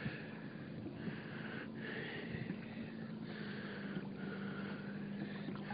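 Water swishing against and under a plastic Hobie Mirage Outback kayak as it rides through small boat wakes: about four long, even swishes, one every second and a half or so.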